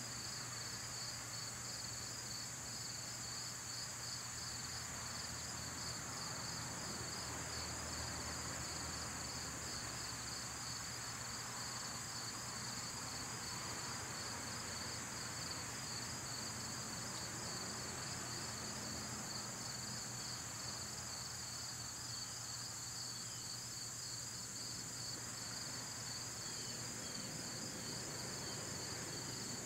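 Crickets chirring: a steady high-pitched drone with a pulsing trill just below it, constant throughout.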